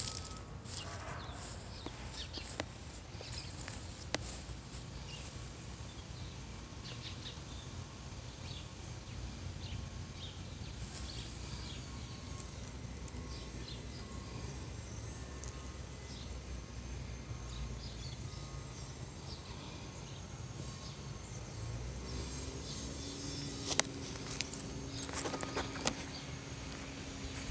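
Outdoor ambience: a steady low rumble with faint, scattered bird or insect chirps. Near the end a steady low engine-like hum comes in, and a few sharp clicks sound over it.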